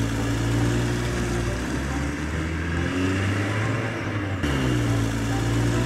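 Truck engine sound effect dubbed over a toy dump truck: a steady low engine note that shifts and briefly revs up about two-thirds of the way through.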